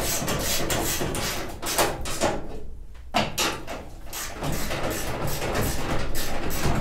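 Irregular knocks and clatter of tools and metal parts being handled while a jig is bolted into place, with a brief lull about three seconds in.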